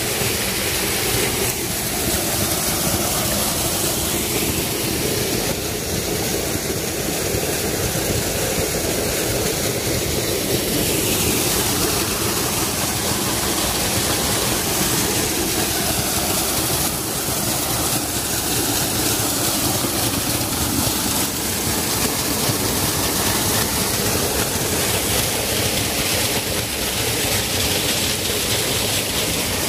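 Steady rushing of a shallow stream's running water.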